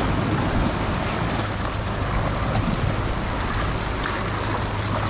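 Sea surf washing and surging against shoreline rocks, a steady rushing noise with wind buffeting the microphone.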